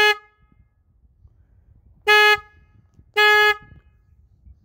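Motorcycle horn sounded in short beeps by a child pressing the handlebar horn button: the tail of one beep at the start, then two more about two and three seconds in, each one steady tone.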